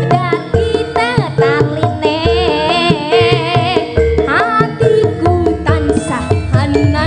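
Javanese gamelan (karawitan) music: a singer's line with wavering vibrato over sustained metallophone tones and hand-drum strokes.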